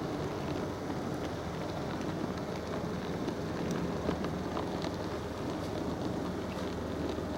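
HO-scale model train running along the track, heard from a camera car riding on it: a steady motor and wheel rumble with faint, irregular clicks as the wheels pass rail joints and turnouts.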